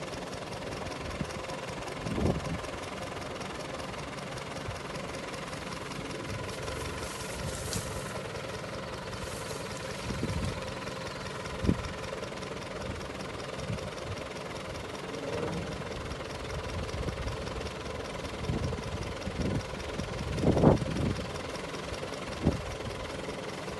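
Engine of a small tipper truck idling steadily with its bed raised, with a few dull thumps now and then, the loudest near the end.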